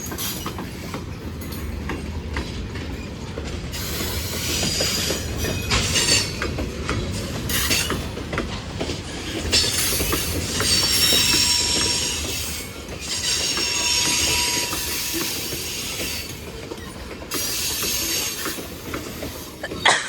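Freight cars of a long Norfolk Southern train rolling past, a steady rumble of steel wheels on the rails. Several spells of high-pitched wheel squeal rise and fade over the rumble.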